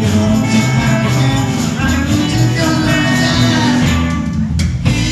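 Rockabilly band playing live, an instrumental passage between sung verses with no vocals.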